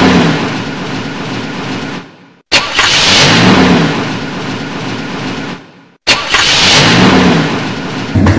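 Car engine starting and revving, played three times in a row with a short silent gap between each, an added sound effect.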